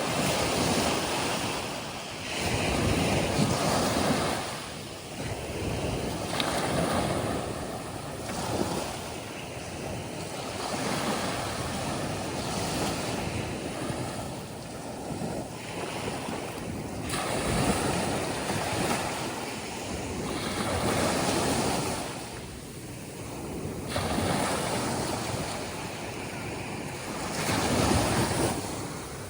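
Atlantic surf breaking and washing up onto a sandy beach: a steady rush of waves that swells and falls back every three to four seconds.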